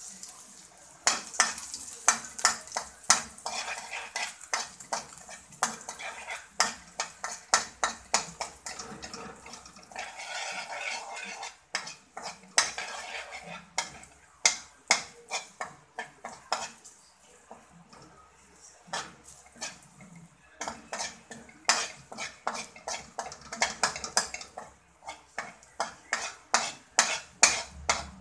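Metal spatula stirring and scraping in a stainless steel wok, giving quick irregular clanks and scrapes several times a second with a few short pauses. Chopped garlic sizzles lightly underneath.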